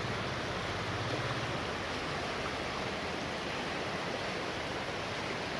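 Shallow river running fast over rocks: a steady rush of water.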